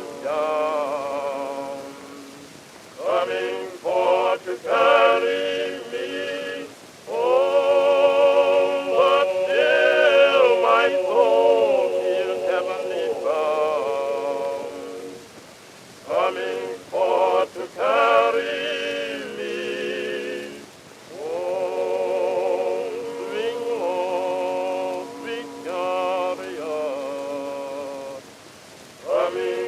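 Slow blues music: a wordless lead melody with wavering vibrato, played or sung in phrases with short pauses between them, over a held lower note.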